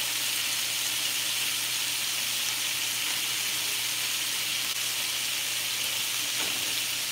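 Chicken pan-searing on the stove, giving a steady, even sizzle.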